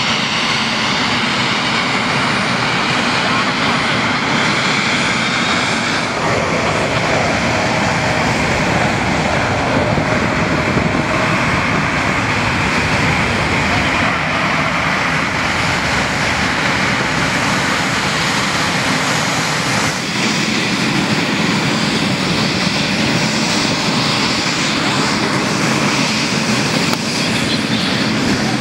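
Boeing 737 jet engines running at taxi power: a steady roar with a faint high whine.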